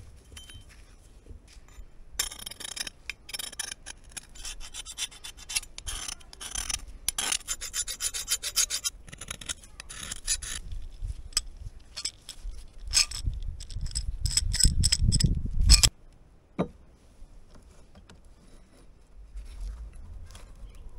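A steel tool scraping against a rusty axe head: a run of rapid rasping strokes from about two seconds in, then slower, separate scrapes. A single sharp knock follows, then it goes quieter.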